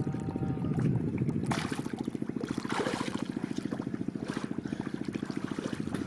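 A boat engine running steadily with a fast low chugging pulse, about ten beats a second, with brief splashes of water now and then.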